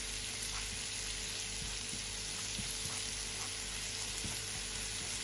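Minced garlic and chopped coriander frying in melted butter in a nonstick pan while a silicone spatula stirs them. The sizzle is steady, with a few faint ticks.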